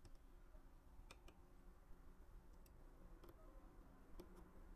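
Near silence with several faint, sharp clicks at uneven spacing: small repair tools touching the opened iPhone 12's internal parts while it is being taken apart.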